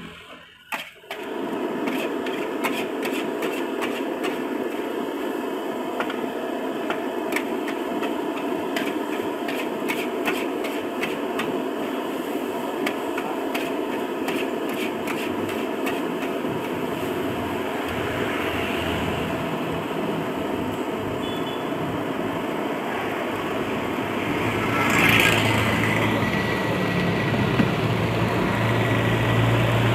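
A metal spatula clanking and scraping in a wok as fried rice is tossed, over a steady loud hiss from the burner. The clanks come fast through the first half, then the stirring settles into a steadier sizzle and hiss, with a low hum growing near the end.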